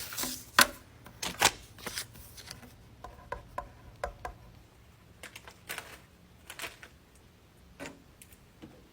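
Scattered light clicks and taps of small objects being handled, irregular and spaced apart, a few louder ones in the first couple of seconds.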